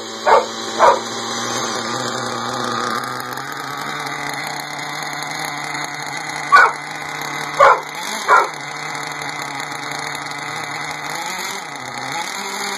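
Trackstar .21 two-stroke glow-fuel racing engine in an RC buggy running steadily at idle on its first start. Five short, loud barks cut over it, two near the start and three about seven to eight seconds in.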